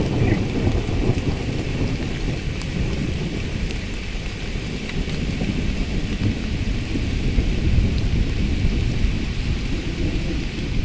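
Steady rain and wind outdoors: a continuous low rumble with a fainter hiss above it, with no distinct drops or other events.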